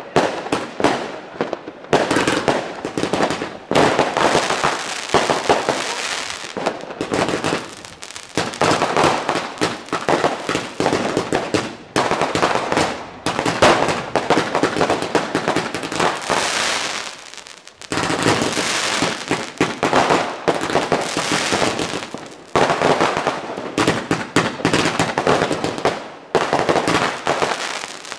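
New Year's Eve fireworks going off continuously: rapid bangs and crackling with hissing, one after another, with a brief lull about two-thirds of the way through.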